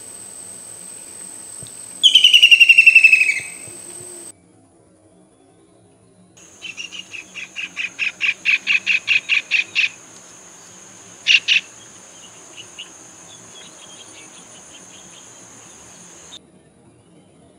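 White-throated kingfisher calling: a loud, quick rattle of notes that falls in pitch, about two seconds in. Later comes a run of about fifteen evenly spaced sharp notes, about four a second and growing louder, then two more notes and some fainter ones.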